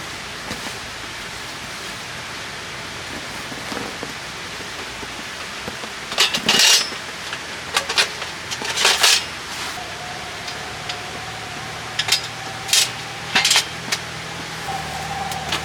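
Short clinks and clatters of handled objects, in two clusters, over a steady hiss; a faint steady tone comes in about ten seconds in.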